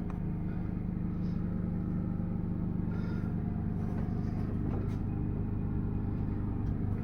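A small portable generator running steadily, a low even hum.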